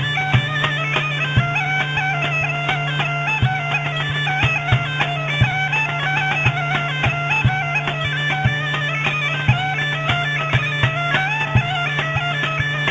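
Bagpipe music: a steady low drone under a quick, ornamented melody, with drum beats struck beneath it.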